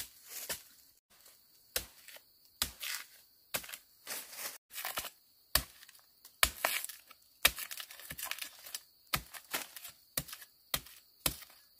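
A string of sharp cracks and crunches, about one or two a second at uneven spacing, some trailing off in a brief crackle, as of dry material being snapped or crushed.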